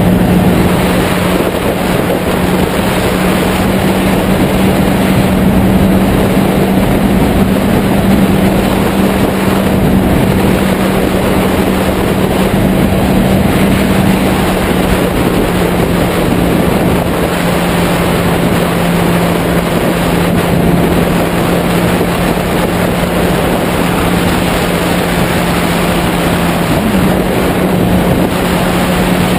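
Heavy wind noise on a tank-mounted camera microphone over a Yamaha YZF-R6's inline-four engine cruising at steady revs while it is being broken in. The engine note dips slightly in pitch partway through and comes back up near the end.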